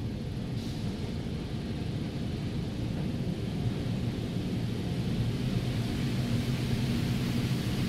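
Automatic car wash tunnel spraying water and mist over the car, heard from inside the cabin as a steady rushing noise with a low hum underneath, slowly getting louder.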